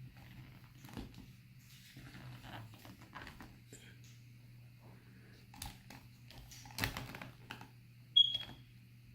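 Soft clicks and rustles of a plastic collectible figure being handled and turned, with a cluster of sharper clicks about seven seconds in. Over a steady low hum. A short, sharp, high ping about eight seconds in is the loudest sound.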